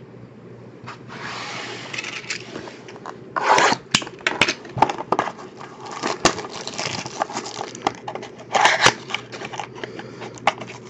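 Packaging being handled: rustling, crinkling and scraping, with scattered sharp clicks and taps and two louder bursts, about three and a half and nine seconds in.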